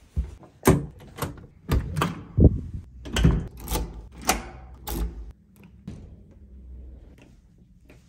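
A run of about a dozen irregular knocks, clicks and thuds over roughly five seconds.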